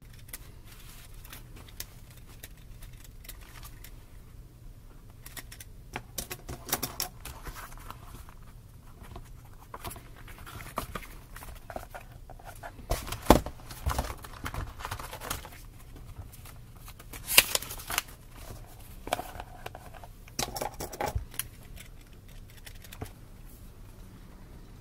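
Paper spiral notebooks handled on a desk: pages and covers rustling and sliding, with scattered taps and knocks as they are picked up and set down, the two loudest knocks around the middle.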